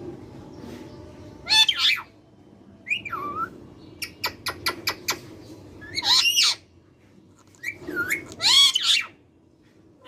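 Ringneck parakeet calling: a handful of short, harsh squawks with arching and falling pitch glides, and a quick run of about seven clicks in the middle.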